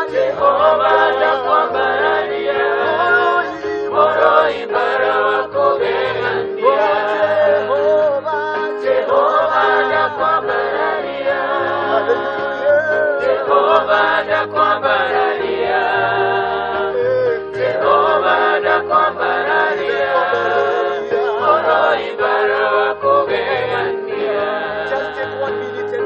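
A small group of worshippers singing a gospel worship song together over an electronic keyboard, which holds a steady note under the voices and plays a changing bass line.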